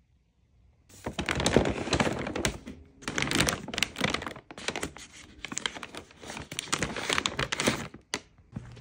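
A stapled brown paper bag crinkling and rustling as it is handled and pulled open, in loud bursts with short pauses, starting about a second in.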